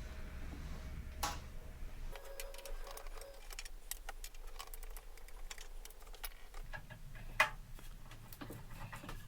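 Quick, scattered light clicks and ticks of a screwdriver working the screws out of the Advance Paris A10 amplifier's metal cover, the footage sped up.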